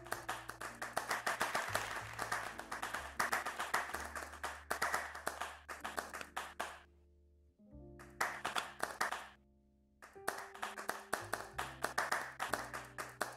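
Clapping, rapid and dense, breaking off twice briefly in the second half, over background music with low held notes.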